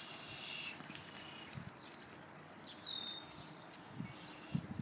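Quiet farmyard ambience with a few short, high bird chirps and occasional soft thuds of footsteps in mud.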